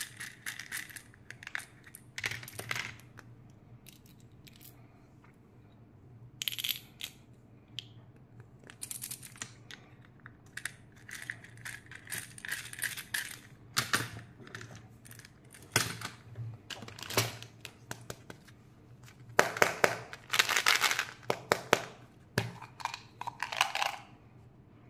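Candy-filled plastic toys being handled and shaken, small hard candies rattling and clicking against the plastic in irregular bursts, with a denser, louder stretch of rattling about twenty seconds in. A faint low steady hum runs underneath.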